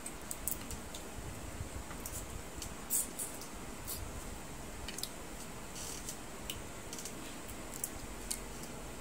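Small, scattered clicks and cracks of cooked crab shell being broken and picked apart by hand, with one louder crack about three seconds in.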